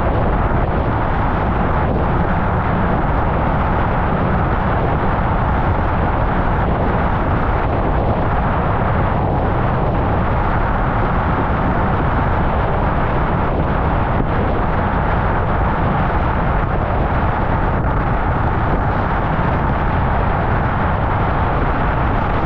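Steady wind rush on a GoPro Hero 10's microphone mixed with water rushing under a slalom windsurf board planing at speed.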